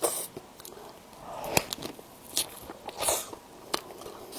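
Close-miked eating: bites and wet chewing, with about five sharp smacking clicks spread across a few seconds.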